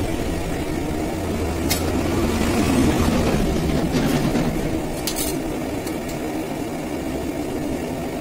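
A motor running with a steady low hum and rush, growing a little louder a few seconds in and easing back, with a couple of sharp clicks.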